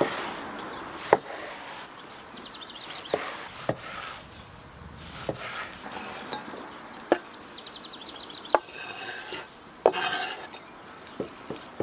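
Large knife cutting vegetables on a wooden cutting board: sharp knocks of the blade against the wood a second or two apart. Near the end, chopped vegetables slide off the board into a metal tray with a brief rattling rush, and birds chirp faintly in the background.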